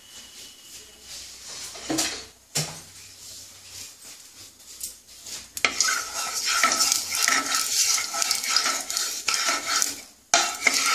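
A wooden spatula knocks and scrapes in a non-stick kadai of heating cooking oil. From about halfway in, a loud, steady crackling sizzle starts as the spatula spreads the hot oil, breaking off briefly near the end.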